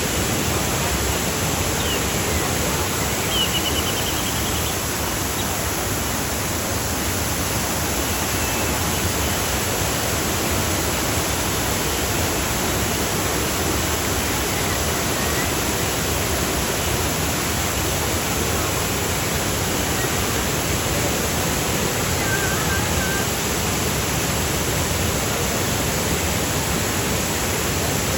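Steady rush of fast-flowing river water, with a few faint high chirps a few seconds in and again later.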